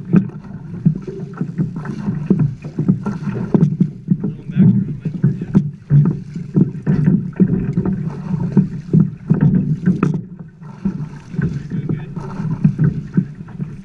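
River water slapping and splashing against the side of a boat's hull: an irregular, continuous run of dull knocks.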